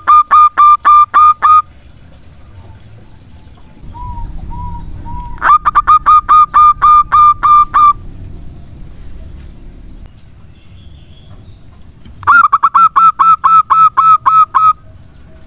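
Zebra dove (perkutut) singing: three loud bursts of rapid, evenly spaced staccato coo notes, each run lasting about two seconds, with a few soft low coos between the first two bursts.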